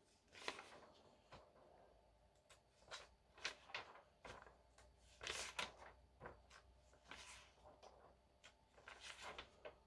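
Faint, scattered paper rustles of a comic magazine's pages being turned by hand.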